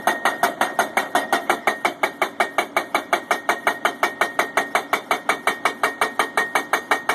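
Rock hammer pounding on a steel pipe pile, driving it into the ground: rapid, even blows, about six a second, with the pipe ringing steadily under them.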